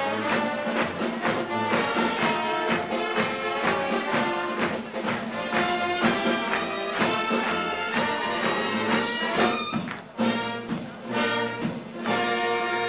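Live band music led by brass, playing a lively tune over a steady beat.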